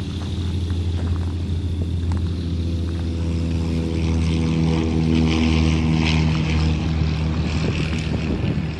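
Light aircraft piston engine running steadily at low power: a low hum with a stack of steady engine tones. A hiss swells about four seconds in and eases off near the end.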